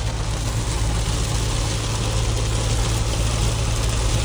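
Steady cabin noise of a Mahindra Scorpio N driving on a wet road in rain: a low drone with an even hiss over it.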